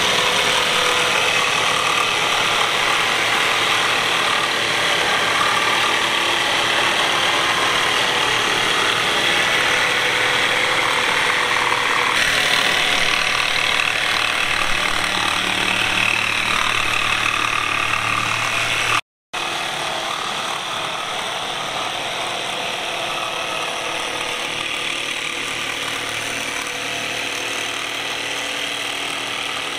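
Jigsaw sawing a curve through a thick solid-wood tabletop: a steady buzzing rattle that cuts out for a moment about two-thirds of the way through.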